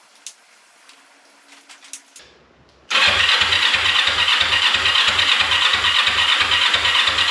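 Electric starter cranking the Kawasaki 454 LTD's parallel-twin engine, which turns over with an even rhythmic chug of about three beats a second but does not fire, since there is no fuel in the tank. The cranking starts suddenly about three seconds in, after a few faint clicks.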